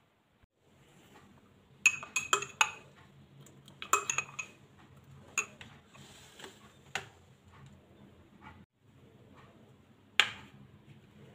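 Metal spoon clinking against a glass jar and dishes being set down on a tiled counter: a quick cluster of sharp clinks a couple of seconds in, a few scattered ones after, and one loud knock near the end.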